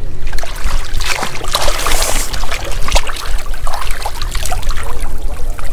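Water splashing and sloshing around a large striped bass as it is lowered into the water for release. The splashing is loudest about two seconds in and eases off after three, over a steady low rumble.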